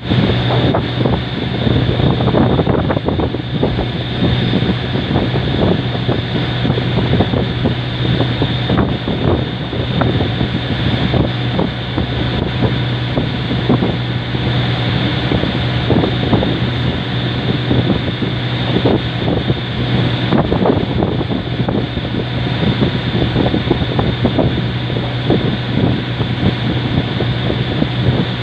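Boat engine running steadily with a constant hum, while wind buffets the microphone with gusty rumble and crackle.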